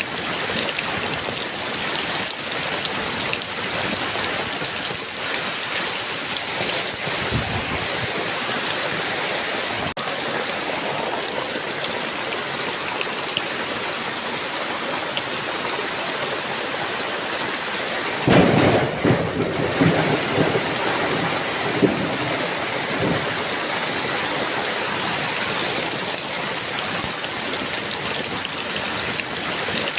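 Heavy rain falling steadily, with a sudden thunderclap about two-thirds of the way through that rumbles on for several seconds.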